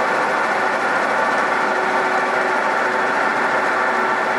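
A milling machine's rotating cutter taking a steady cut in tough, high-grade steel, with an even grinding cutting noise over the running of the machine.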